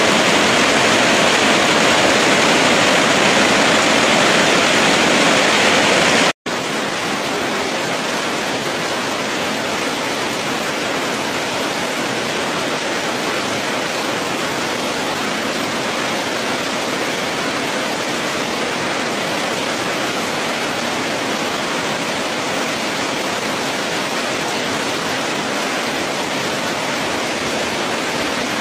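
Heavy tropical rain pouring steadily onto garden foliage and wet ground: a dense, even hiss. It cuts out for an instant about six seconds in and comes back slightly softer.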